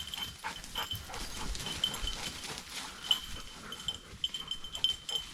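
A small bell on a bird dog's collar tinkling irregularly as the dog works through thick brush, over rustling brush and footsteps.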